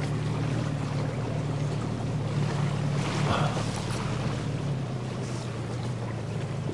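Small boat motor running steadily, a low even hum over a steady hiss.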